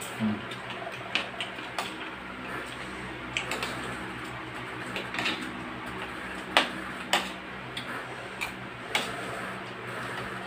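A spoon and fork clinking and scraping against a plate of rice, in scattered sharp clicks a second or so apart, over a steady low hum.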